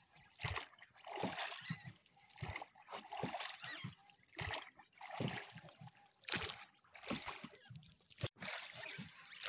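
Oars of a rowboat dipping and pulling through calm water, with splashes about once a second and water dripping off the lifted blade.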